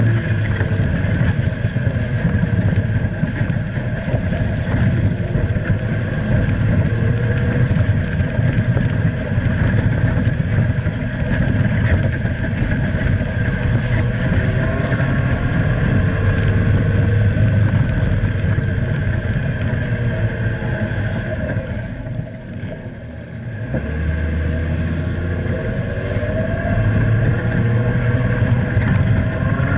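A 2015 Jeep Wrangler JKU Rubicon, with its 3.6-litre V6, running down a steep sand dune, heard from under the vehicle: a steady low engine drone with the tyres churning through loose sand. About three-quarters of the way through it quietens briefly, then a deeper rumble comes back in.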